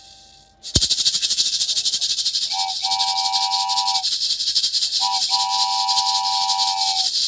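A sound effect of fast, steady shaken rattling, like maracas, that starts suddenly under a second in. Two held chord-like tones, each about a second and a half long, sound over it.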